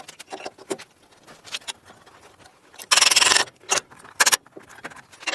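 Metal tools and parts clicking and clinking as they are handled, with a dense burst of rapid rattling about three seconds in and a few sharp single clicks after it.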